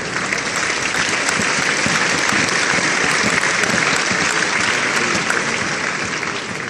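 Crowd applauding, a dense steady clapping that dies away toward the end.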